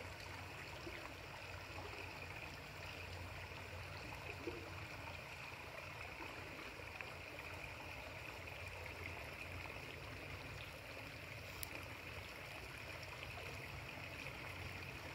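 Faint steady outdoor background hiss with a low hum underneath, and a couple of tiny ticks.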